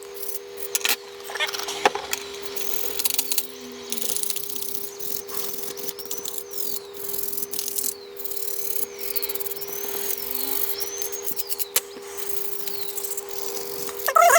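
Toothbrush scrubbing the inside of a plastic remote control casing: irregular brushing strokes, with a run of faint high squeaks in the middle, over a steady hum.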